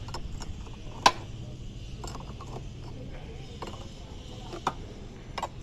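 Scattered metallic clicks and ticks of hand tools working on a car's steering linkage, one sharp click about a second in and another near the end, over a low steady hum.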